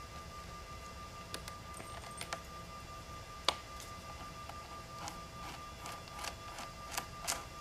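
Light clicks and ticks of a screwdriver turning out a bolt in a motorcycle's battery box, metal and plastic tapping, with one sharper click about three and a half seconds in and a quicker run of clicks near the end, over a faint steady tone.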